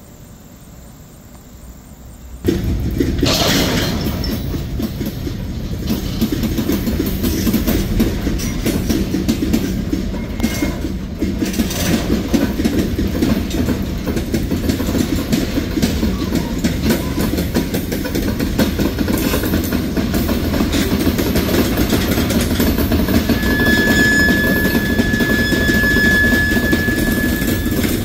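Freight train of covered hopper cars starting to roll after standing. The rumble and clatter of steel wheels and couplers come in suddenly and loudly about two and a half seconds in, and go on as the cars creep past. A steady high squeal joins for the last few seconds.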